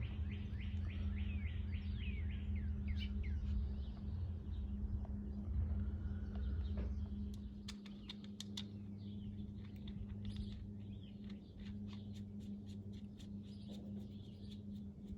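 A songbird singing: a quick run of about ten falling chirps in the first couple of seconds, with more scattered chirps after. Later come many short sharp clicks and light knocks, over a steady low hum.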